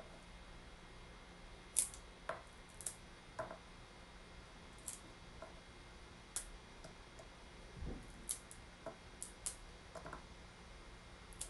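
Walnuts being cut into smaller pieces: about a dozen faint, irregular clicks.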